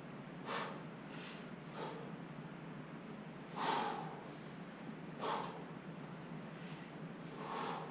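A man breathing out hard with effort while exercising: about five short, faint exhalations spaced a second or two apart, the strongest near the middle.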